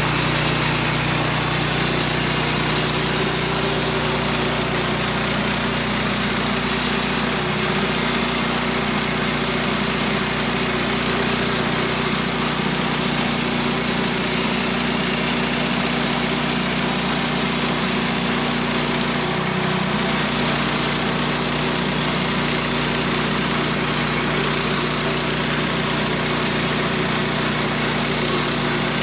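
Woodland Mills HM126 band sawmill's small gas engine running steadily while the band blade makes a pass through a spruce log. The engine note dips briefly twice, about 7 and 19 seconds in.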